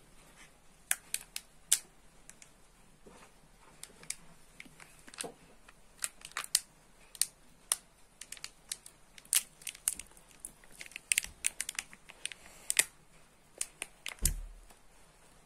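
Disposable cup crackling and clicking as it is gripped and handled, with many irregular sharp clicks and one dull bump about fourteen seconds in.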